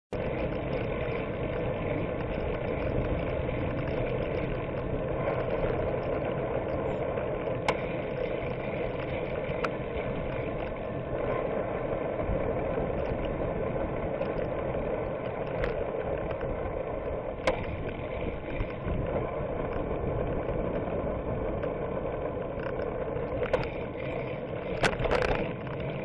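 Steady riding noise from a bicycle-mounted camera: wind on the microphone and tyres rolling on pavement, with a few sharp clicks from the bike rattling over bumps.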